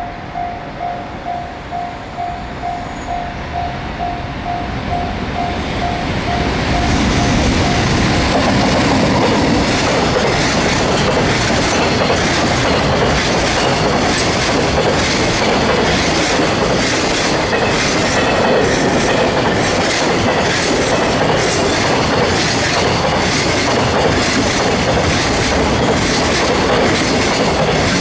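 A level-crossing warning bell dings about twice a second as a JR Freight EF200 electric locomotive approaches. From about six seconds in, a long container freight train passes close by, its wheels clicking over the rail joints in a steady rhythm that drowns out the bell.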